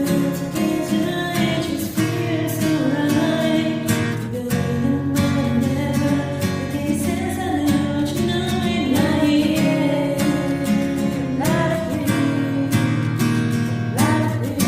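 Strummed acoustic guitar chords accompanying a singing voice whose melody wavers up and down.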